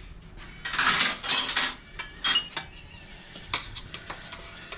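Steel tyre spoons scraping and clinking against a dirt-bike wheel rim as the tyre bead is levered off: a scraping stretch about a second in, then a few sharp metallic clinks, one ringing briefly.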